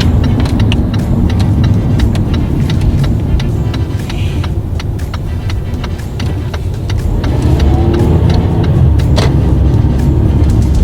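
Steady low rumble of a vehicle driving along a highway, heard from inside, with many small clicks and rattles over it. A faint rising tone comes in about two-thirds of the way through.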